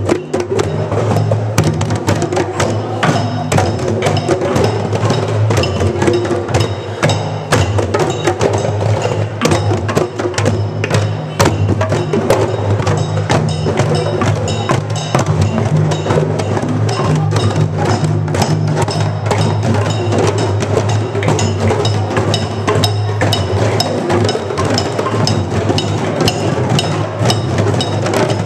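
A group of djembe hand drums played together by many players, a dense, steady run of overlapping sharp hand slaps over a continuous deep bass tone.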